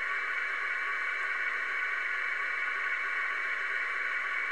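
Minimodem's 1200-baud audio FSK data signal, Bell 202 style, played back from a WAV file: a steady, unbroken stream of modem tones that encodes text.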